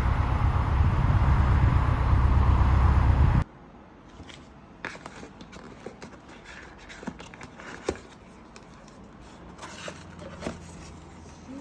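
Background pop music with a heavy bass that cuts off abruptly about three seconds in. It is followed by quiet room sound with scattered light clicks and taps.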